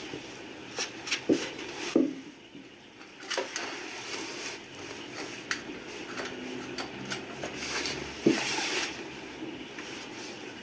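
Handling noise: scattered clicks and knocks of hard objects being moved and set down, with louder thumps about a second in, at two seconds, and near eight seconds.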